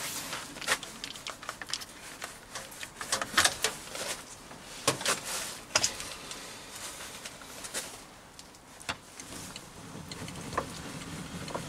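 Scattered clicks and metallic knocks of hand work on a lathe milling attachment, with a few sharper knocks in the middle, as the electric drill that drives it is taken off.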